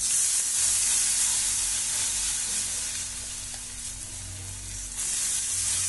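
Semolina batter sizzling in hot oil and butter as it is ladled into a kadhai. The sizzle starts abruptly, eases off over several seconds, then picks up again near the end.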